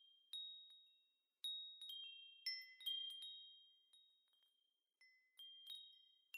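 Faint, high bell-like chime tones struck one or two at a time at uneven intervals, each ringing out and fading slowly, with a short pause a little past the middle.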